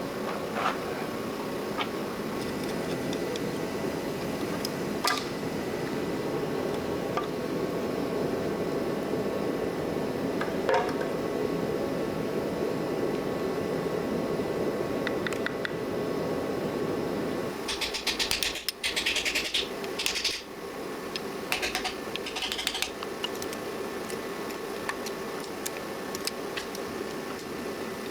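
Steady fan-like hum with scattered metal clinks of hand tools at work on a stripped-down small-block engine. Past the middle the hum drops away and a few seconds of rapid metallic clicking and clatter follow, then more scattered clinks.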